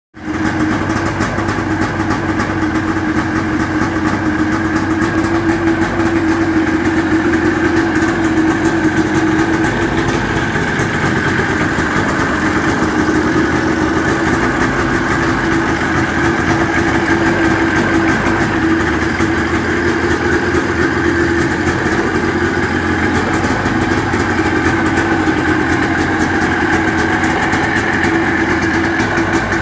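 Yamaha Excel V snowmobile's two-stroke engine idling steadily.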